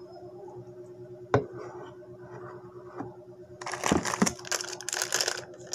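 Crackling, crinkling handling noise that turns dense from about three and a half seconds in, with a couple of soft thumps. A single sharp click comes about a second in, and a low steady hum runs underneath.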